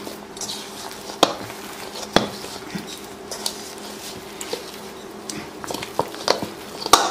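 Hand kneading mashed boiled potato and chopped onion in a stainless steel bowl: soft squishing with scattered light knocks of fingers and bowl against the steel.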